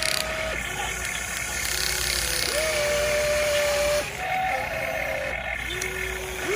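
Electric motors of a radio-controlled model excavator whining in several short runs, each rising in pitch as it starts, holding steady and then stopping, over a steady mechanical hiss.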